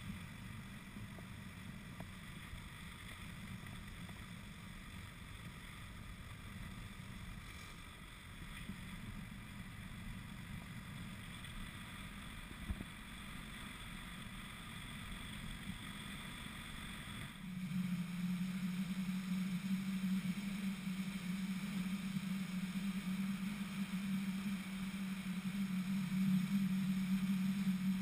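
Classic VW Beetle driving at road speed, heard from a camera mounted on the outside of the car: a steady mix of air-cooled flat-four engine hum, wind and tyre noise. About two-thirds of the way in the sound changes abruptly and gets louder, with a steady low drone on top.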